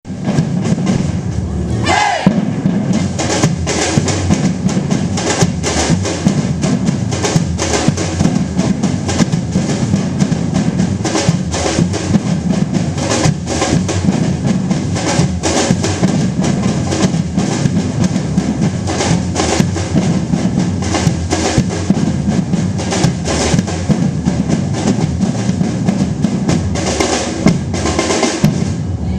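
Ensemble of drummers playing tribal-style percussion together, dense loud strokes in a steady driving rhythm with deep drum hits underneath.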